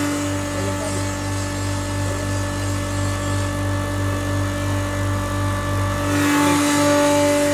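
A 7.5 hp double-chamber chana dal grinder running steadily, with a constant motor hum over grinding noise as it mills split chickpeas into besan. The low rumble drops away and the sound turns brighter about six seconds in.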